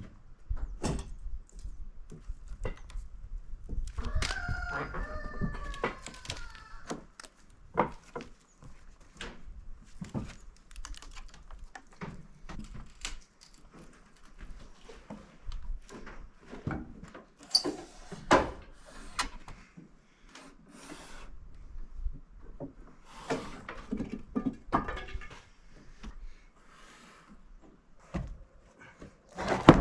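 Scattered knocks and thunks of wooden slabs and boards being handled and stacked, with a loud thunk near the end. A rooster crows once about four seconds in.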